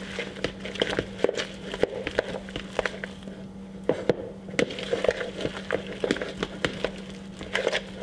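A hand squishing and mixing a wet salmon rangoon filling in a plastic bowl: irregular squelches and sharp little clicks throughout, under a faint steady hum.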